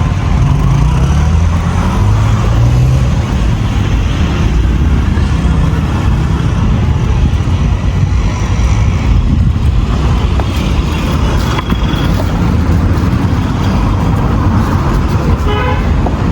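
Busy roadside traffic: vehicle engines running steadily, with a vehicle horn tooting.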